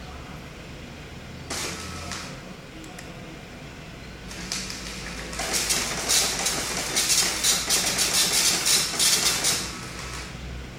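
Dot-matrix printer printing on continuous fanfold forms. There is a short burst about a second and a half in, then from about halfway to near the end a loud run of print-head passes, about three or four a second.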